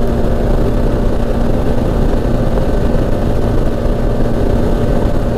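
2017 Arctic Cat Wildcat Trail 700 side-by-side running hard at a steady high engine speed near its top speed of about 60 mph. A steady engine note sits under heavy wind and road noise.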